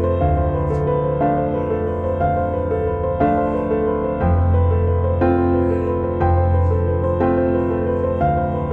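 Background music: soft piano playing sustained chords over a low bass note, with the chords changing about once a second.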